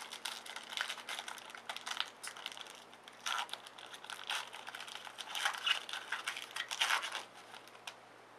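A trading-card pack wrapper being torn open and crinkled by hand, in irregular scratchy bursts that stop about seven seconds in.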